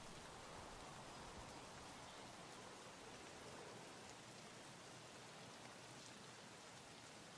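Faint, steady hiss of rain.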